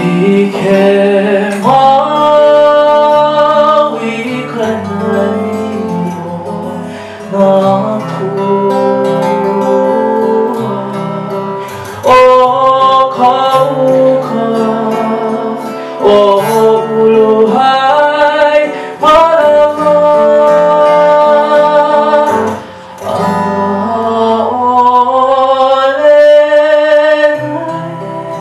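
Live Hawaiian song: a man singing in long held phrases with vibrato, accompanied by a strummed acoustic guitar.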